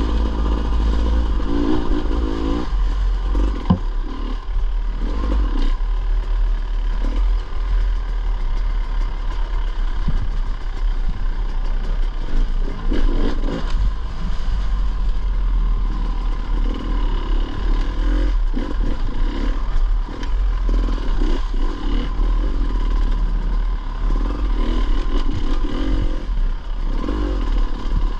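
Dirt bike engine running under a rider on rough single track, heard from a rider-worn camera, the revs swelling and easing. There is clatter and scraping from the bike over the ground, and a few sharp knocks.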